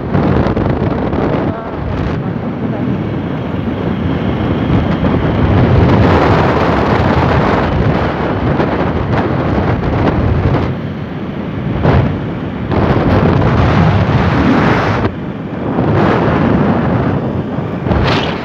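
Heavy wind buffeting the microphone of a camera held out from a moving motorcycle, a rough, gusting rush that swells and dips every few seconds.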